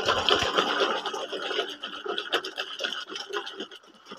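A hand churning detergent water in a metal basin, whipping it into suds: irregular sloshing and fizzing, growing quieter toward the end.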